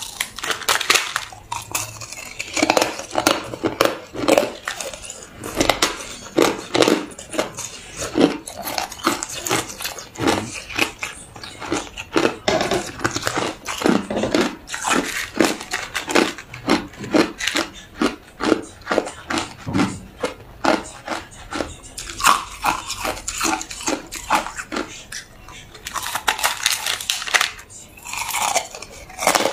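Hard crushed ice bitten and chewed in the mouth: a dense, irregular run of sharp cracking crunches, several a second, with thicker flurries near the end.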